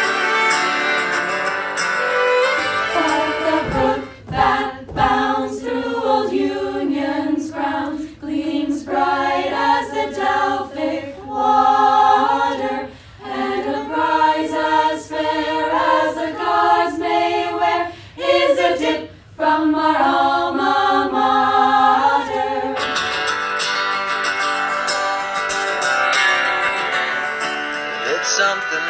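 A group of young women singing a song together, starting about two and a half seconds in and stopping a few seconds before the end. Before and after it, a recorded song with strummed acoustic guitar plays.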